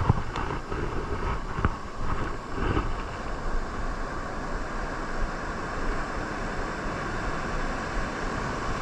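Heavy surf: large waves breaking and washing in, with wind noise on the microphone. A few short knocks in the first three seconds.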